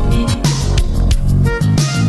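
Background music: an electronic track with a heavy bass line and a steady beat.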